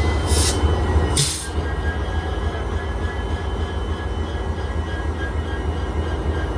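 EMD GT46PAC (WDP-4) locomotive's 16-cylinder 710G3B two-stroke diesel engine running with a steady deep drone and a thin high whine. Two short hisses of air come about half a second and a second in.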